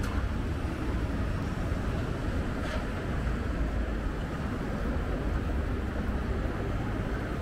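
Steady low rumble of a vehicle in motion, with one faint click about three seconds in.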